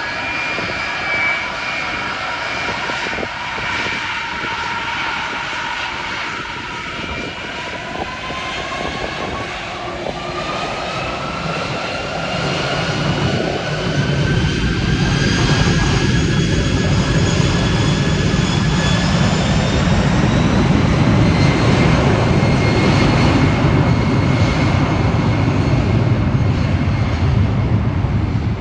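Jet engines of a Boeing 747 Dreamlifter cargo plane during takeoff. A whine climbs steadily in pitch, and about halfway through a louder low rumble builds and holds.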